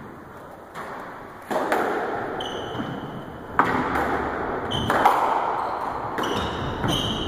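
Squash rally: the ball is struck hard a few times and smacks off the court walls, each hit echoing in the enclosed court, with short high squeaks of court shoes on the wooden floor between shots.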